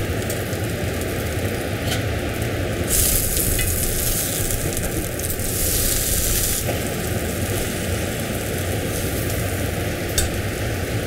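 Burger bun halves and a thick onion slice frying in melted butter in a frying pan: a steady sizzle that flares louder twice, about three and six seconds in, over a steady low hum.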